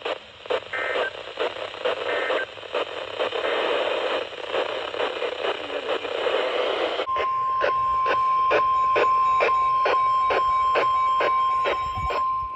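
Weather radio receiver hissing with heavy static on a weak signal. About seven seconds in, the steady single-tone NOAA Weather Radio warning alarm comes on, with a regular clicking about three times a second over it, marking the start of a new alert.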